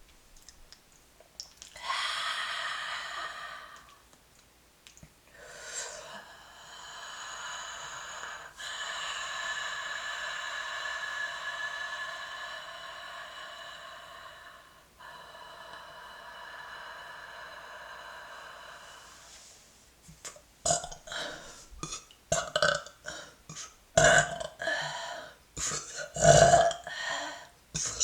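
A woman burping: a short belch about two seconds in, then one long drawn-out belch lasting about fourteen seconds, then a quick string of short, louder burps near the end.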